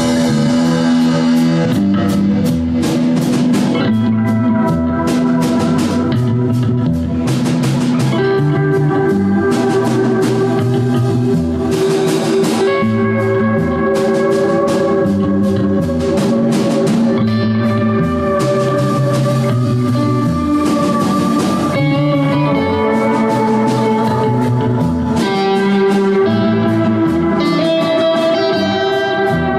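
Live rock band playing an instrumental passage: an amplified electric guitar plays a lead line of held, sustained notes over a drum kit with steady cymbal strokes and a moving bass line.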